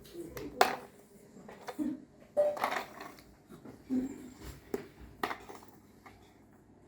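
Scattered knocks and clatters of a toy car being handled and bumped about, several sharp hits a second or so apart, with a few brief vocal sounds from a baby.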